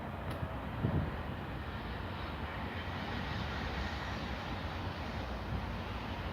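Steady rumbling noise of a steam locomotive, BR Standard Class 4MT 2-6-0 No. 76084, with a short low thump about a second in and a faint steady high whine joining from about halfway.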